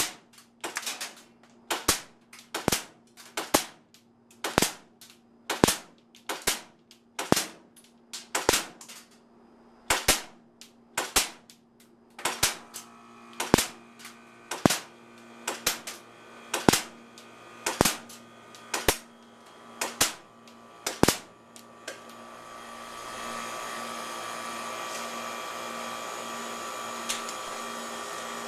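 3PX4 gas airsoft pistol firing a long string of single shots, a sharp pop about once a second, stopping about 21 seconds in as the gun runs out of gas before the magazine is empty. A steady rushing noise follows near the end.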